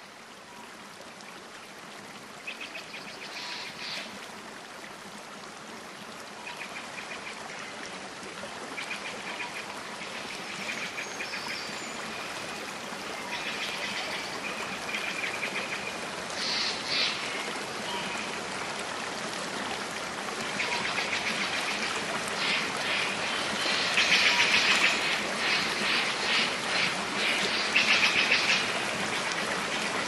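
Birds chirping and calling in short repeated bursts over a steady rush of running water, getting louder and busier toward the end.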